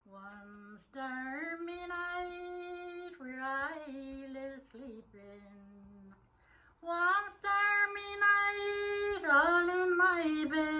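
A woman singing a slow Traveller ballad alone, without accompaniment, holding long drawn-out notes, with a short pause for breath about six seconds in.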